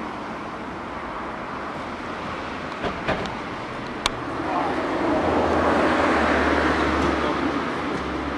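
Steady outdoor noise with a few sharp clicks, then a vehicle passing by: its noise and low engine hum swell from about halfway through and fade near the end.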